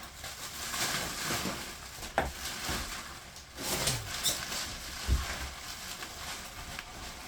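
Scattered knocks, scrapes and rustling from debris being handled, with a sharp knock about two seconds in and a low thump near five seconds.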